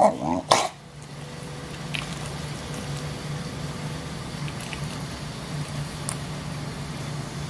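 An English bulldog gives two short grumbling barks in the first second, then a steady low hum carries on for the rest.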